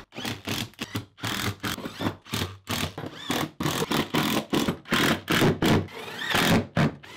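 Cordless impact driver running in many short bursts with gaps between them, driving screws with washers through foam backer board into wood studs. A rising whine comes as the motor spins up on some screws.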